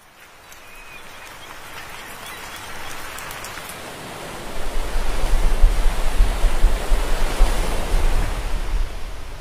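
Sea water splashing and fizzing as a school of small fish churns the surface and humpback whales lunge-feed up through it. It grows much louder about four and a half seconds in, with a deep rumble underneath.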